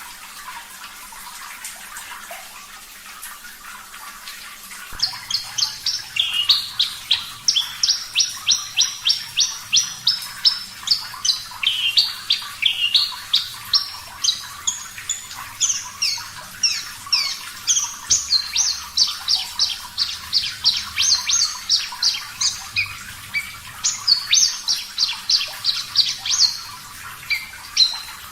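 Horsfield's bush lark (branjangan, parva race) singing a fast, unbroken run of sharp, high notes, about four or five a second, starting about five seconds in, over a steady background of running water.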